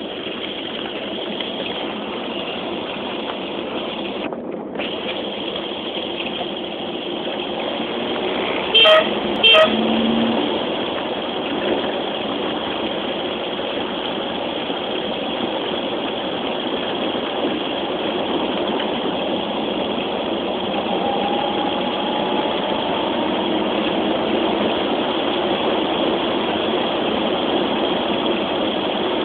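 Citroën DS under way, its four-cylinder engine and road noise running steadily. A little under ten seconds in, a horn gives two short toots.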